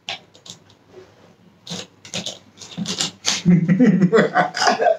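A person's non-speech vocal sounds: a few breathy puffs, then loud voiced sounds from about three and a half seconds in.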